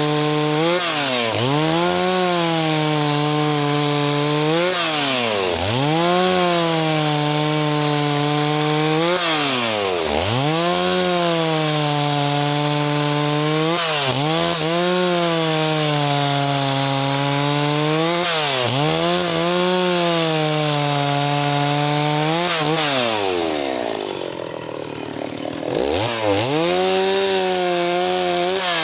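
Stihl 038 two-stroke chainsaw running at high revs, likely cutting wood. Its pitch dips sharply and climbs back about every four seconds. Near the end it falls briefly toward a lower speed and then revs back up.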